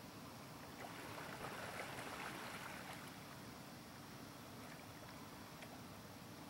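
Faint splashing of canoe paddle strokes in the water, swelling about a second in and easing off after three seconds, over a low steady rumble.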